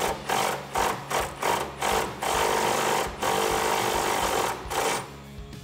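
Cordless power tool driving an 18 mm socket to run the nut off the rear panhard bar bolt: short bursts about three to four times a second, then two longer steady runs, stopping about five seconds in as the nut comes off.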